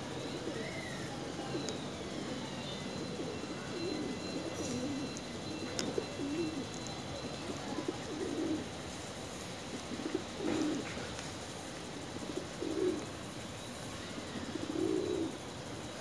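Domestic pigeons cooing, low coos coming every second or two.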